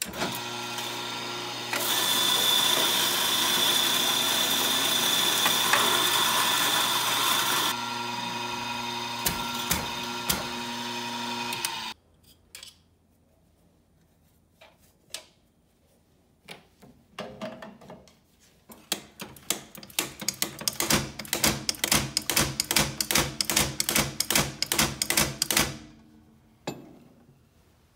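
Rancilio MD50 doser grinder's motor grinding espresso beans for about twelve seconds, with a steady whine that is loudest in the middle stretch, then stopping abruptly. After a few scattered clicks, the doser lever is pulled over and over, clacking about four times a second for several seconds as the grounds are dispensed into the portafilter.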